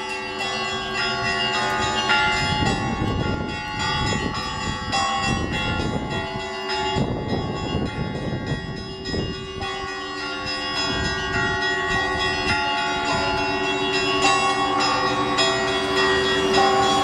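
Russian Orthodox church bells rung in a performance: many bells of different pitches struck in quick succession and overlapping, with a deeper bell ringing on under the smaller ones.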